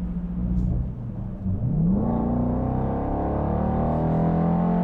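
The 2021 Dodge Durango R/T's 5.7-litre V8 and its loud exhaust under hard acceleration, heard from inside the cabin. The engine note dips briefly, climbs sharply in pitch about a second and a half in, then holds a loud, steady drone.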